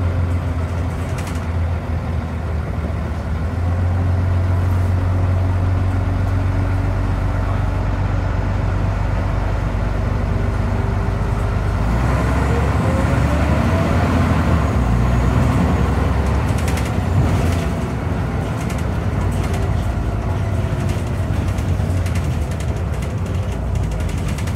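Scania DC9 9-litre diesel engine heard from inside the bus, idling steadily with a low hum. About halfway through it revs up as the bus pulls away, with a rising whine from the drivetrain, then settles into steady running with the ZF Ecomat automatic gearbox in drive.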